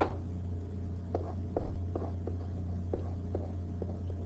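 A stylus tapping on a writing tablet or screen while letters are handwritten: about a dozen light, irregular clicks over a steady low hum.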